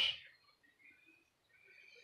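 A man's last word trails off in a hiss, then a pause of quiet room tone with a few faint, thin high chirps.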